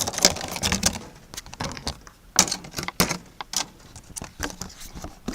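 Date pits clicking and rattling against one another and a container as they are handled, in an irregular run of sharp little taps, busiest in the first second and with louder clicks in the middle.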